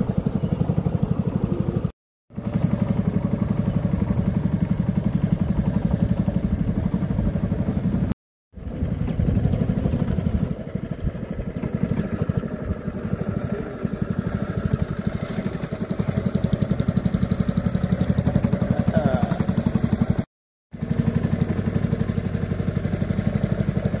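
Motorboat engine running steadily at cruising speed, a low, even drone. The sound cuts out completely three times, each for a fraction of a second.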